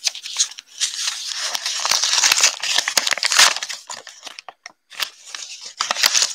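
Crinkly plastic trading-card pack wrapper being torn open and pulled apart by hand, a dense crackling that is heaviest for the first few seconds and then thins to scattered small crackles and clicks.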